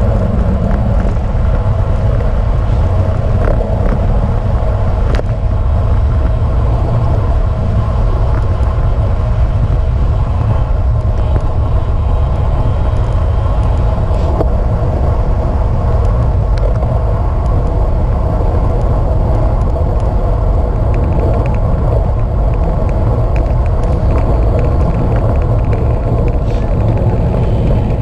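Wind buffeting the microphone of a bike-mounted camera while riding a road bike, a loud steady low rumble.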